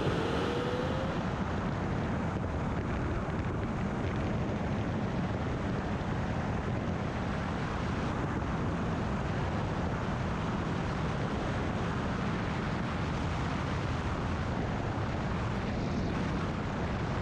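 Steady rushing airflow over an engineless glider in flight on its landing approach, loud wind on the camera microphone. A faint tone rises gently in the first second.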